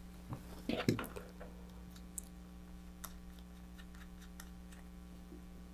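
Light clicks and taps from hands handling a handheld rotary tool and its small drill bit, with a cluster of sharper clicks in the first second, then only sparse faint ticks over a steady low hum.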